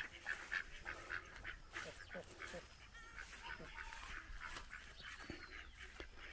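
Faint, scattered quacks and short calls from a flock of domestic ducks.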